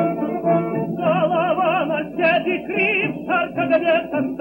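Music: a singing voice holding long notes with wide vibrato over instrumental accompaniment, the voice coming in about a second in.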